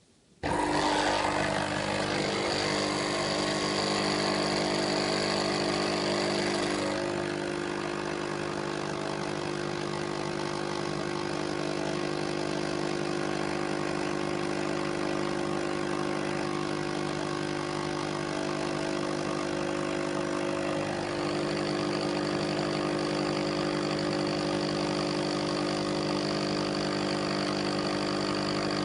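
Coffee machine running: a steady, many-toned hum that starts suddenly, changes tone about seven seconds in and again about twenty-one seconds in, then cuts off abruptly near the end.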